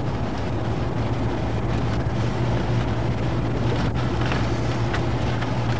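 Steady low engine drone and running noise heard from inside a moving vehicle's cabin, with some wind noise on the microphone.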